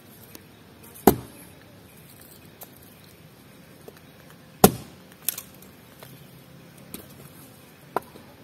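A few sharp knocks as cooking gear is handled while a raw beef steak is being seasoned: two loud ones about a second and four and a half seconds in, then lighter taps.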